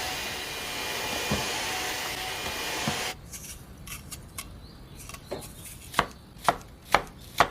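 Kitchen cooking sounds: a steady hiss for about three seconds that cuts off suddenly, then four sharp knocks about half a second apart near the end, a knife chopping on a wooden cutting board.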